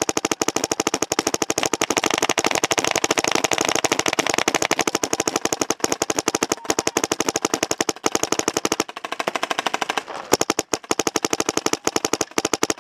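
Dye DM14 paintball marker firing a rapid, even stream of shots. It thins out briefly about nine seconds in, then fires hard again.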